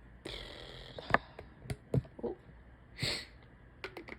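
A woman breathing and sniffing while her nose runs: a long breath in, a few small sharp clicks (the first is the loudest), then a short, sharp sniff about three seconds in.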